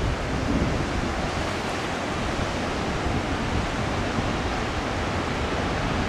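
Heavy surf breaking on rocks below, a steady rushing wash of noise, with some wind on the microphone.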